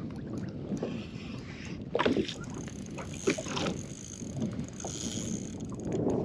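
Choppy water lapping and slapping against a plastic kayak hull, with a few louder slaps about two, three and six seconds in, over wind noise on the microphone.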